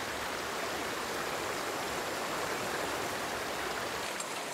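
Shallow mountain creek running over rocks: a steady rush of flowing water.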